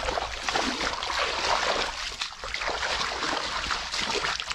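Feet splashing and sloshing through shallow muddy water and mud, irregular steps.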